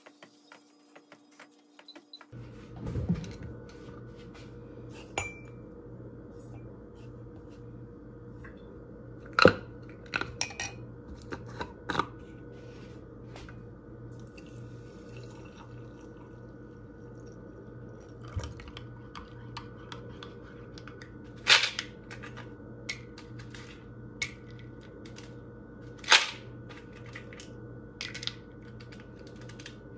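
Iced coffee being made in a ceramic mug: ice cubes and a wooden stirrer clinking and knocking against the mug, a scattering of sharp clinks. A steady low hum comes in about two seconds in and runs underneath.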